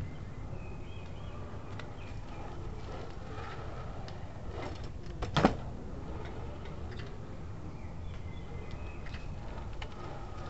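A BMX bike lands hard on asphalt once, about halfway through: a single loud smack of tyres and frame, with a couple of lighter clicks just before it. Steady outdoor background noise runs underneath.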